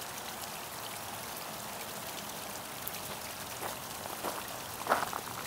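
Water from a boulder fountain splashing and trickling steadily into its basin, with a few faint ticks and one brief knock about five seconds in.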